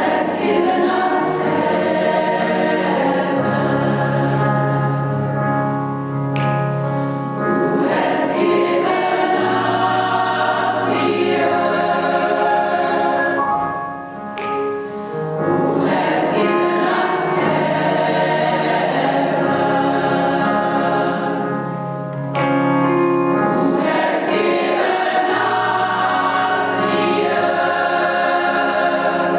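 Gospel choir singing with band accompaniment, sustained chords over a bass line.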